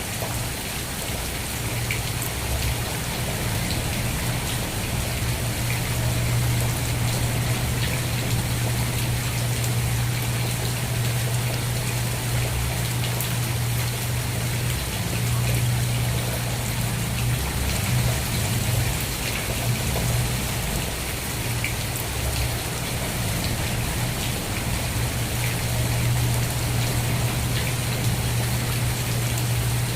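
Steady rain falling, an even hiss of drops with a constant low rumble underneath.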